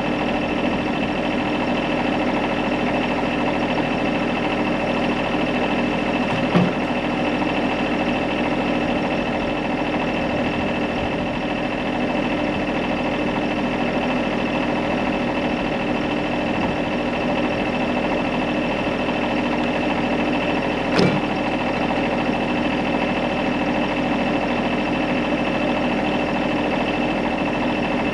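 A running machine drone, steady and unchanging, made of several fixed tones, with a short knock about six seconds in and another about twenty-one seconds in.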